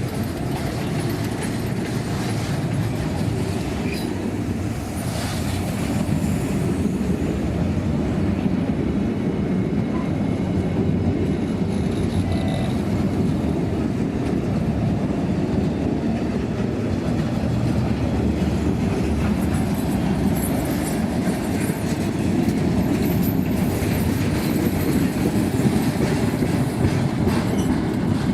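Freight train wagons rolling by: a steady low rumble with the clickety-clack of wheels over the rail joints, and a faint high wheel squeal about twenty seconds in.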